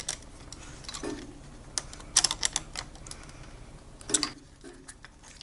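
Scattered light metallic clicks of a 10 mm socket tool on a long extension working the nut onto a starter solenoid's cable terminal. A quick run of several clicks comes about two seconds in.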